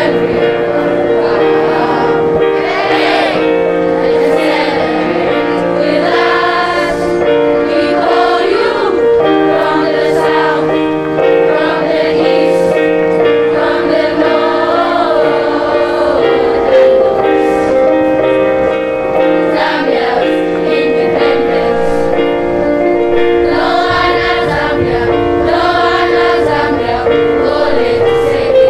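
Children's school choir singing a song together over musical accompaniment, with steady held notes beneath the voices.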